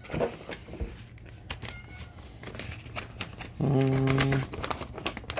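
Crumpled packing paper rustling and crinkling as it is handled and pulled aside. About three and a half seconds in comes a short, steady vocal sound lasting under a second.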